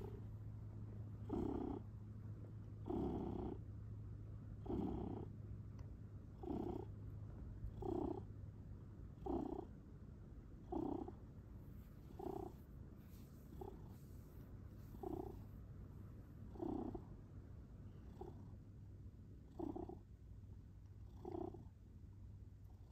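Domestic cat purring steadily close to the microphone, the purr swelling louder about every second and a half.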